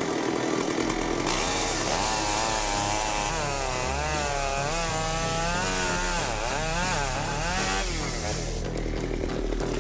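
Large chainsaw cutting through wood. Its engine pitch rises about a second in and wavers up and down as the chain works through the cut, then falls back lower near the end.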